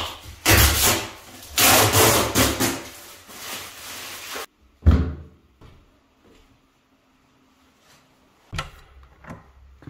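A bathroom door being handled: rough rubbing and scraping noises in the first few seconds, then one sharp thud about five seconds in, followed by a couple of light clicks near the end.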